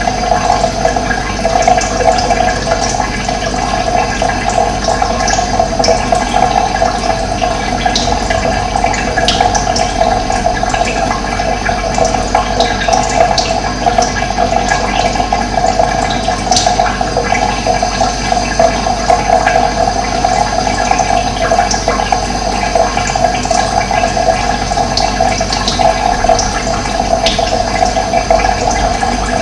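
Running water rushing steadily, with a few short, faint bird chirps now and then.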